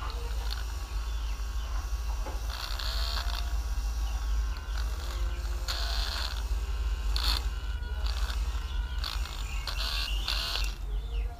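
Short, irregular scraping and rubbing noises as the opened smartphone is handled and turned over, over a steady low hum.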